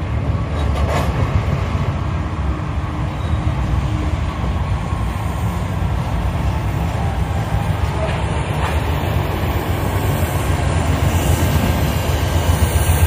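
Norfolk Southern double-stack intermodal train rolling past: a steady low rumble of the cars on the rails. It grows a little louder near the end as the diesel distributed-power locomotives come alongside.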